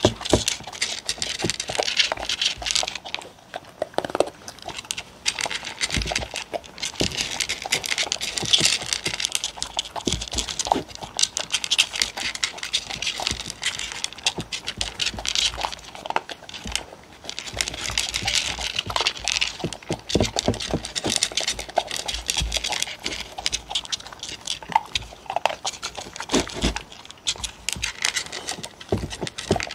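Two dogs crunching and chewing duck-based kibble close to the microphone, in quick crackling clusters with short pauses, and a few dull knocks against the wooden bowls.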